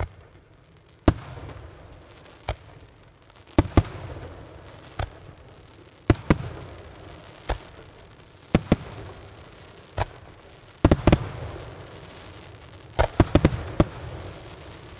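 An aerial fireworks display, with shells going off in sharp bangs about once a second, each followed by a fading rumble. Quick clusters of several bangs come a little past the middle and again near the end.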